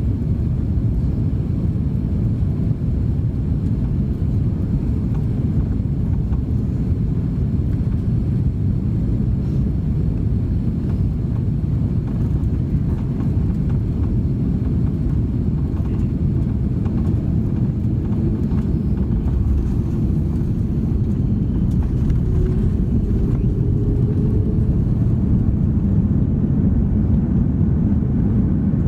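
Airbus A330-300 cabin noise during landing: a steady low rumble of the engines and airflow, growing a little louder near the end.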